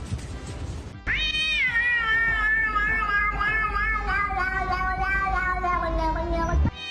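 A cat's single long, drawn-out meow, starting about a second in and wavering as it slowly falls in pitch for over five seconds, then cutting off near the end.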